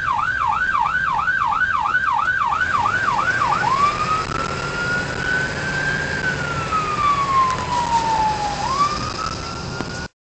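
Ambulance's electronic siren heard from inside the cab: a fast yelp of about four warbles a second, which about four seconds in switches to a slow wail that rises, falls and starts to rise again. The sound cuts out just before the end.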